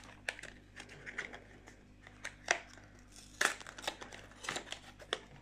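Thin cardboard packaging handled by hand and its top flap prised open: soft rustles and scrapes of card with a few sharp clicks and taps.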